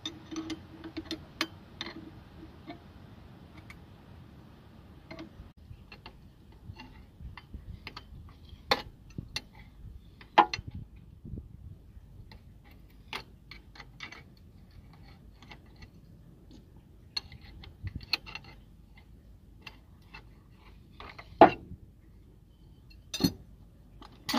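Steel wrenches clicking and clinking on the centre bolt of a three-arm harmonic balancer puller as the bolt is turned bit by bit to draw the crankshaft pulley off. Irregular light metal ticks, with a few louder knocks scattered through.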